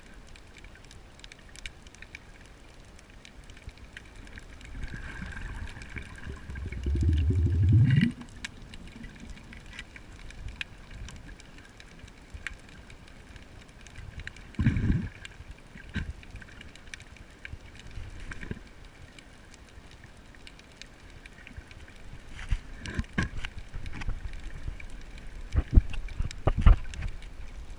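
Underwater sound picked up through an action camera's waterproof housing while snorkeling: a muffled low water rumble with scattered small clicks. A louder muffled low sound comes about seven seconds in and again briefly near the middle, and sharp knocks and thumps come near the end.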